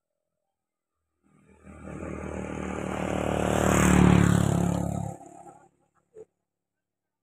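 A motor vehicle engine running, growing steadily louder to a peak about four seconds in, then cutting off abruptly soon after.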